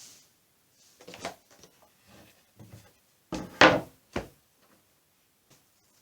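Wooden knocks and clatter of workpieces being handled and set down on a workbench: a few light knocks, then a louder double clunk about three and a half seconds in and one more knock just after.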